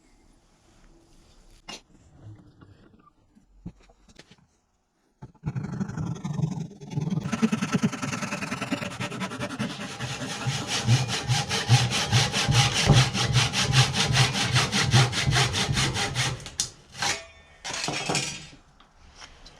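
Hand saw cutting through a block of walnut in fast, even back-and-forth strokes, starting about five seconds in after some light handling, and ending with a few last separate strokes near the end.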